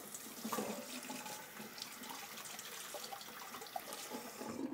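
Kitchen tap running water into a sink, a steady rush of water.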